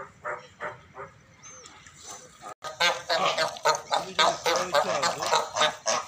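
Cape fur seals barking at each other in a fight. A few barks fade out in the first second. The sound breaks off briefly about two and a half seconds in, and then comes a dense, rapid run of loud, harsh barks.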